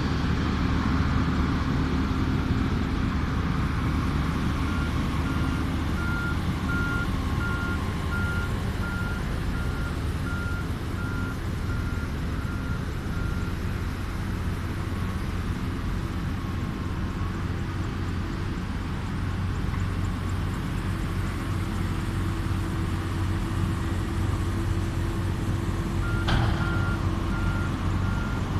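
Steady low engine rumble of a heavy vehicle, with a high electronic reversing alarm beeping evenly. The alarm sounds for several seconds, stops, and starts again near the end, just after a sharp click.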